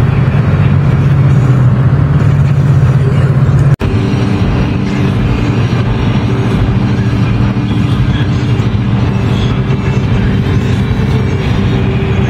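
Steady low drone of a car driving, engine and road noise running evenly, broken by an abrupt cut about four seconds in, after which a similar steady drone carries on.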